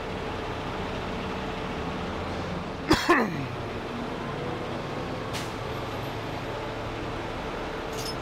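Heavy tow truck's engine idling steadily. About three seconds in there is a sharp click, followed by a brief sound sweeping quickly down in pitch.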